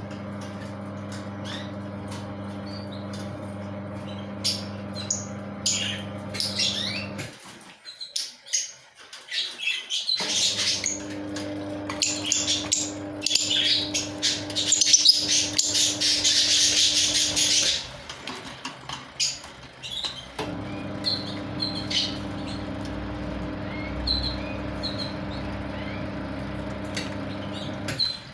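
Pet lovebirds chirping and squawking in a rapid series of short, high calls, busiest in the middle. A steady mechanical hum starts and stops three times beneath them.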